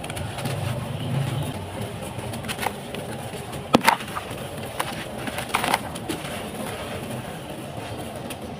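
Handfuls of dry, stony sand-and-cement mix being squeezed, crumbled and sifted back into a bucket, with a few sharp cracks as lumps break, the loudest about four seconds in.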